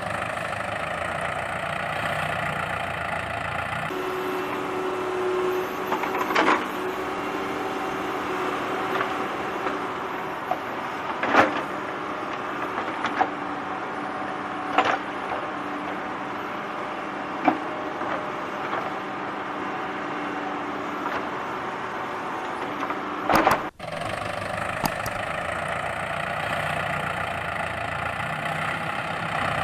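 Small electric motor of a battery-powered toy vehicle whirring steadily, with a few sharp clicks and knocks.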